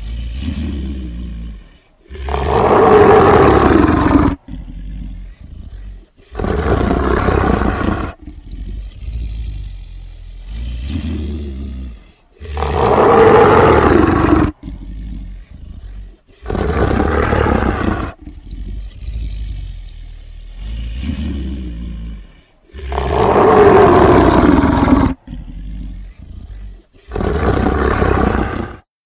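Were-beast monster sound effect: low rumbling growls alternating with loud roars. The longer roars fall in pitch. The same growl-and-roar sequence repeats three times.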